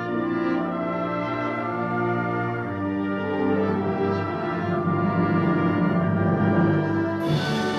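Concert wind band playing slow, sustained chords with the brass to the fore. A cymbal crash rings out near the end.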